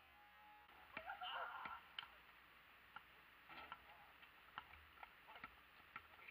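Faint, irregular knocks of a basketball bouncing on an asphalt court, with a distant shout about a second in.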